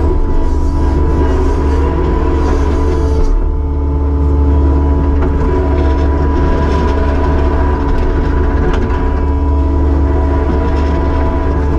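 Kubota SVL75-2 compact track loader's diesel engine running steadily: a constant low rumble with a steady hum over it.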